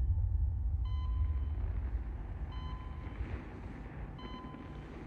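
A low rumble fading away, with an electronic beep repeating about every second and a half to two seconds, each beep about half a second long.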